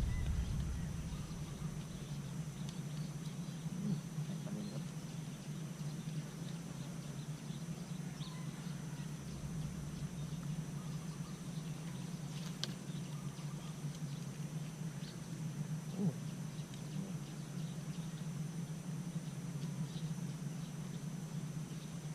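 Steady low hum throughout, with faint scattered chirps and small clicks over it.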